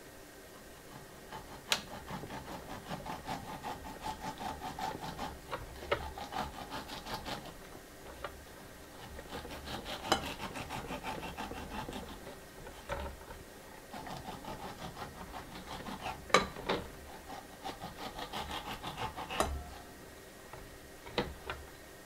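Kitchen knife sawing back and forth through a whole pineapple to cut off its top, in three spells of quick, rhythmic strokes through the tough skin and flesh. A few sharp clicks stand out among the strokes.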